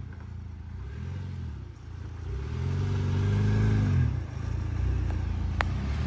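Lifted Jeep's engine revving in throttle pushes as it crawls over rocks, a short one then a longer, louder one, before settling to a steadier low run. A single sharp click near the end.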